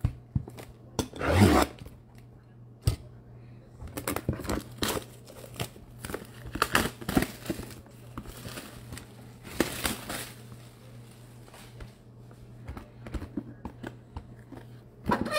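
Plastic shrink-wrap being ripped off a cardboard trading-card box and crinkled, in a run of short tears and rustles. The loudest rips come about a second and a half in and again about ten seconds in.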